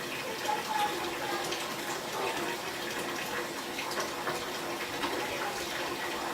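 Water running steadily into a bathtub, a continuous rushing splash.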